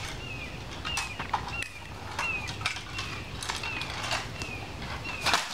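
A bird repeating a short, falling chirp about twice a second, with scattered sharp clicks and knocks.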